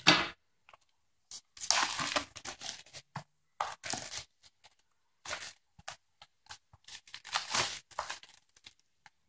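Plastic shrink wrap being torn and peeled off a cardboard box, crinkling in irregular bursts, loudest about two seconds in and again near eight seconds.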